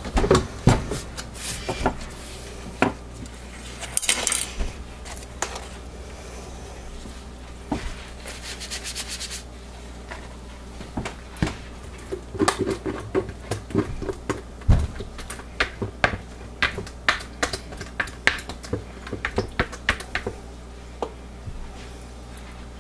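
Irregular clicks, taps and knocks of a silicone spatula against a plastic pitcher and a soap mold as raw soap batter is scraped onto the top of the loaf. They come thickest in the second half.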